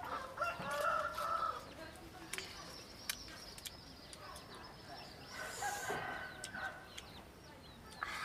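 Rooster crowing twice, about five seconds apart, with a few sharp clicks in between.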